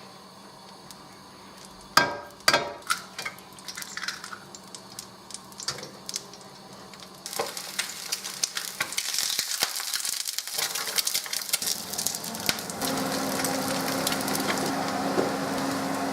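Cookware clanking a couple of times, then food sizzling and frying in a hot pan from about seven seconds in, with scattered utensil clicks. A steady low hum joins near the end.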